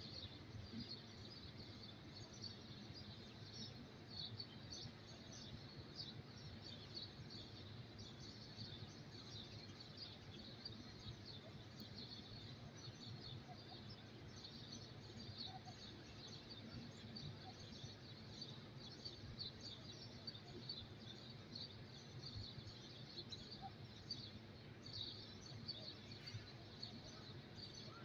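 Faint outdoor ambience: continual high chirping of small birds over a steady low rumble.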